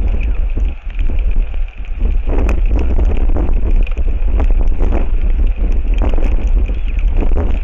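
Strong wind buffeting an outdoor microphone: a loud, continuous low rumble with a gusty rush over it, easing briefly twice in the first two seconds.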